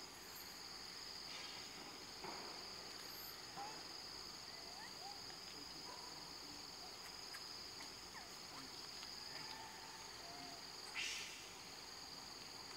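Steady high-pitched drone of forest insects, with a few faint short gliding calls over it and a brief scratchy burst of noise near the end.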